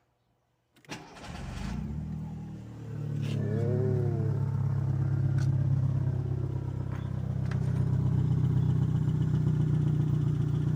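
Volkswagen Gol G3 1.0 16-valve engine starting about a second in and then running steadily, a little louder from about three seconds in. Its exhaust is cut open midway through the muffler, with a homemade tip tack-welded on.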